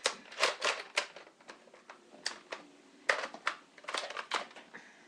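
Irregular clicks, knocks and rustling of small objects being handled and moved about, most of them in the first half and thinning out near the end.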